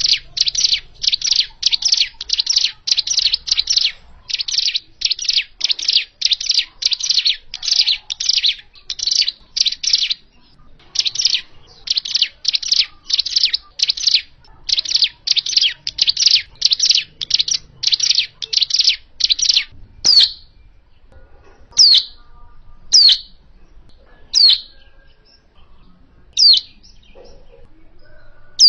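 Ciblek gunung, a mountain prinia, singing: a fast run of repeated high chirping notes, about two to three a second, then, about two-thirds of the way through, single sharp downward-sweeping calls one to two seconds apart.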